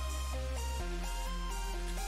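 Background music: a melody of held notes stepping up and down over sustained bass notes that change every second or two.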